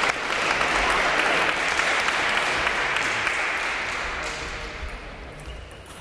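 A small crowd of spectators clapping and cheering after a point in a table tennis match, the applause dying away over the last two seconds.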